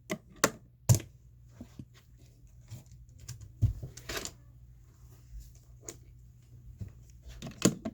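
Irregular sharp clicks and knocks of small hard objects being handled, with a faint hum underneath; the loudest knock comes about a second in, and another comes near the end.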